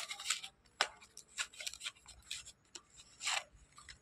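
A cardboard box of slate pencils being handled and a pencil drawn out: scattered short scrapes and rubs, with a longer scrape about three seconds in.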